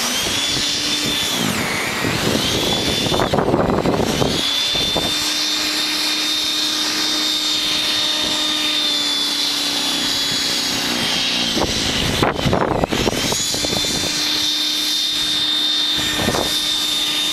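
WEN 5662 18-inch, 13.5-amp electric snow thrower running with a steady whine. Its pitch dips briefly several times, and louder bursts of noise come about three and twelve seconds in.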